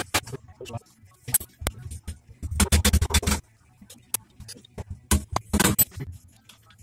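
Metal hand tools and engine parts clinking and clattering on a workbench while a Honda Cub-type engine's clutch side is worked on by hand. A dense rattle of metal comes about two and a half seconds in, with another shorter one about five and a half seconds in.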